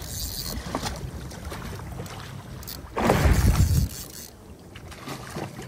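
Water churning and splashing against a boat's hull as a hooked albacore tuna thrashes at the surface, under steady wind on the microphone. A louder, deep rushing burst lasts about a second, about three seconds in.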